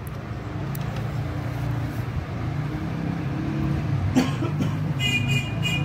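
Light clicks and handling sounds from fingers threading the needle of a sewing machine, over a steady low hum. There is one sharp click about four seconds in and a short run of small clicks near the end.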